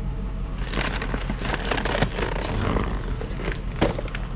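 Crackling, rustling handling noise with scattered sharp clicks, as found items are picked up and rummaged through. It runs from about half a second in until about three seconds, over a steady low hum.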